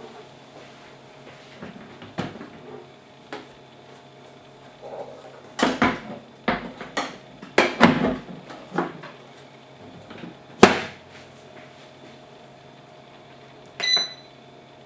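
Plastic clicks and knocks from a Star Light bread maker as its lid is opened and the bread pan inside is handled, ending in the loudest knock as the lid shuts. Near the end comes a short electronic beep as a control-panel button is pressed.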